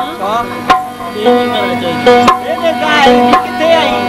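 Live Sindhi folk music: tabla strokes under held drone notes, with a melody gliding up and down between them.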